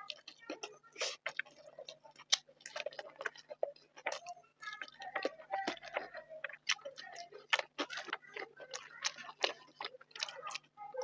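Close-miked chewing and wet mouth clicks and lip smacks of someone eating rice and curry, as an irregular run of short clicks.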